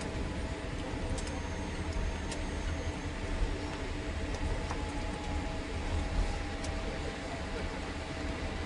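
Cabin noise of a Boeing 787 rolling along the runway after touchdown: a steady low rumble from the wheels on the runway and the idling engines, with a few faint ticks from the cabin.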